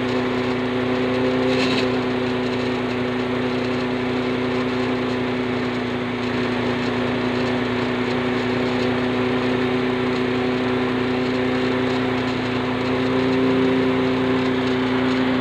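Small home rice-milling machine running steadily, a constant hum over an even rushing noise as the grain is milled.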